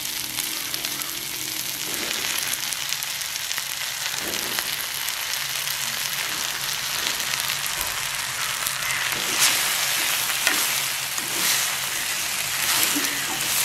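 Onions, tomatoes and spices sizzling steadily in gingelly oil in a clay pot as they sauté. Near the end, a wooden spoon stirs in chunks of eggplant, adding scraping and clatter over the sizzle.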